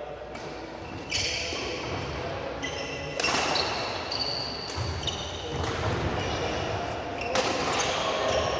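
Badminton rally: sharp racket strikes on the shuttlecock, several of them a second or two apart, echoing in a large hall.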